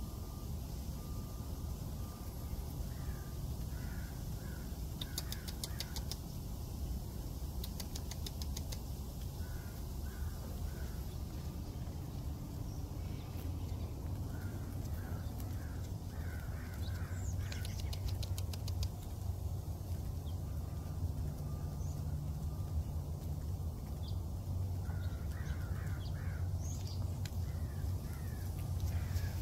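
Peafowl pecking feed off a concrete driveway: quick runs of sharp beak taps, several times, with short soft bird calls in between over a steady low rumble.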